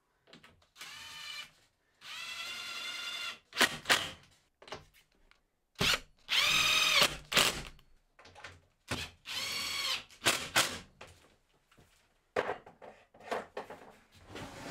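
Cordless drill-driver driving screws through a 12mm MDF back panel into an OSB cabinet carcass: four runs of motor whine of a second or so each, with clicks and knocks of handling between them.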